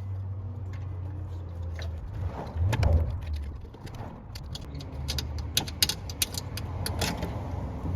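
Sharp plastic clicks and snaps, several in quick succession in the second half, from zip ties being broken and the old light wiring harness's connectors being pulled apart, over a steady low hum.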